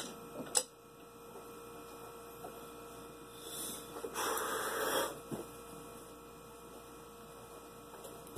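Steady electrical mains hum, with two sharp clicks of drumsticks on the electronic drum kit's rubber pads in the first second and a brief rustle about four seconds in.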